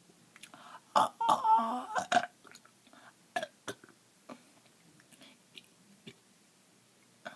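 Gulping and swallowing a drink from a bottle: a loud run of wet gulps about a second in, then scattered small swallowing clicks.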